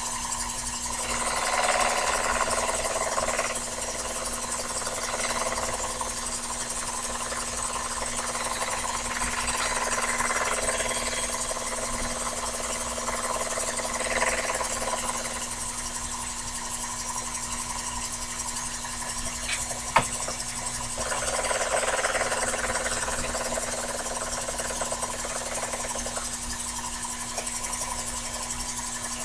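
Sherline mini lathe running steadily while a cutting tool takes light passes on aluminum turned between centers; the cutting noise swells in several stretches of a few seconds each over the motor's hum, with a single sharp click about two-thirds of the way through.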